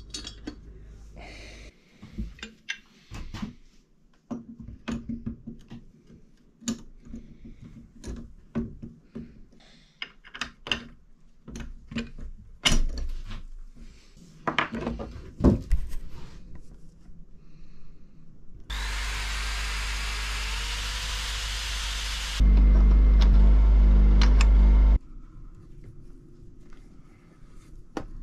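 Bronze fittings and hand tools clinking and knocking as a Blake marine toilet is put back together: many separate sharp knocks and scrapes. Late on, a loud steady noise with heavy bass starts suddenly, jumps louder a few seconds later, and cuts off abruptly.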